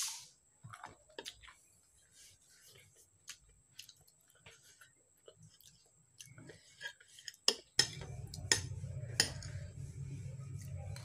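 Metal spoon and fork clinking and scraping against plates while eating, with several sharper clinks in the second half. A steady low hum comes in about three-quarters of the way through.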